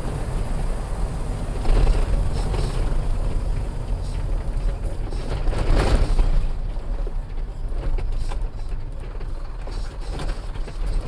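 Truck's engine and road noise heard from inside the cab while it runs down a long descent: a steady low hum with scattered sharp rattles and knocks, and a brief louder noise about six seconds in.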